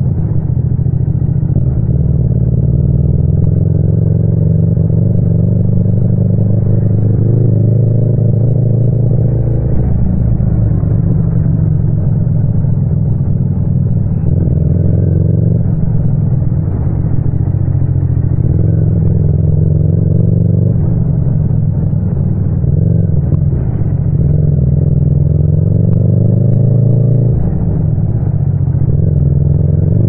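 Yamaha MT-07's 689 cc parallel-twin engine running under light throttle, its pitch rising and falling a little.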